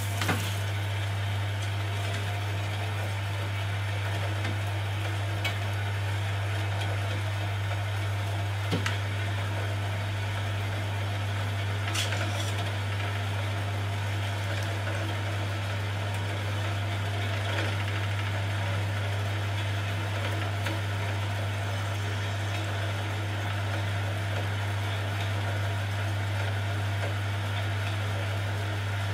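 Huvema 712 metal-cutting band saw running steadily as its blade cuts slowly through a round metal bar with coolant flowing, over a constant low motor hum, with a few faint clicks.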